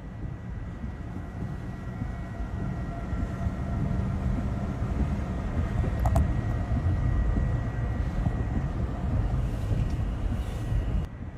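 Strong wind rumbling low and steady, with a faint high tone running through it and a brief pitched blip about halfway.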